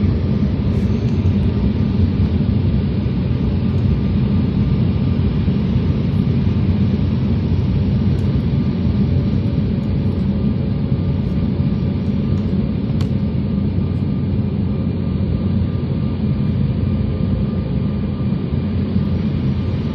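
Airliner cabin noise during the approach to landing: a steady, loud rumble of engines and airflow, with a few faint steady tones over it.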